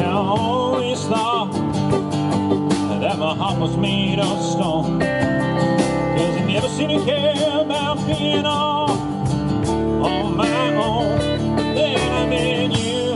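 Country band playing live: a man singing lead over acoustic guitar, electric guitar and drums.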